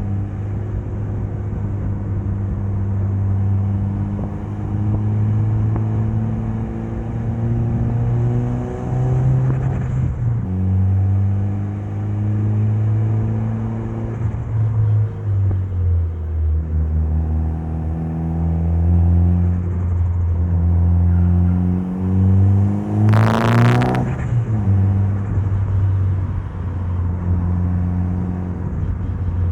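Mitsubishi Lancer Evolution's turbocharged 2.0-litre 4G63 inline-four under way, its note climbing steadily in pitch and then dropping at each of several gear changes. A brief sharp jump in revs comes about three-quarters of the way in.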